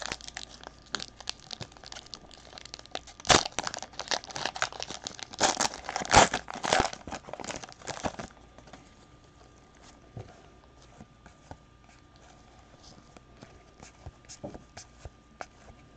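Foil trading-card pack wrapper being crinkled and torn open: a dense run of crackles with two louder tears about three and six seconds in. After about eight seconds it fades to occasional faint clicks.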